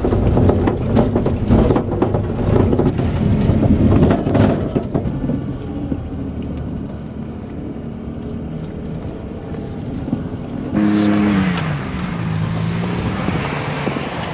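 Pickup truck engines running as the trucks drive through snow, with rough tyre and road noise loudest in the first few seconds. About eleven seconds in, a louder engine note comes in and its pitch falls away over a couple of seconds.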